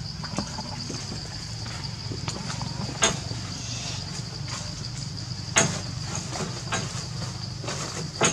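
A steady high insect drone over a low hum, broken by three sharp knocks about three, five and a half, and eight seconds in.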